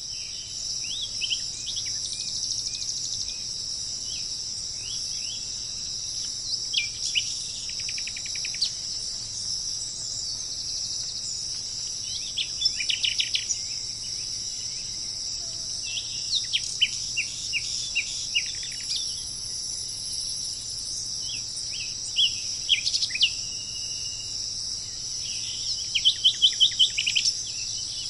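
A steady, high-pitched drone of insects with birds chirping over it. The calls are short, scattered, sharp notes, with a few quick rattling runs of notes about eight, thirteen and twenty-seven seconds in.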